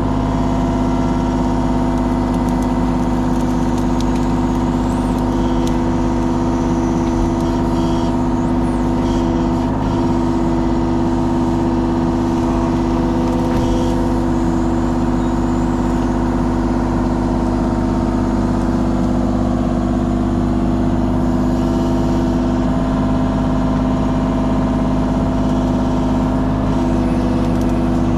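Kubota KX033 mini excavator's diesel engine running steadily, with the hum of its hydraulics as it loads brush.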